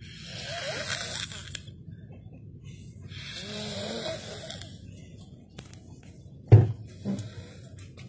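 A man snoring loudly through an open mouth: two long, breathy snores about three seconds apart. Near the end come two thumps, the first the loudest sound of all.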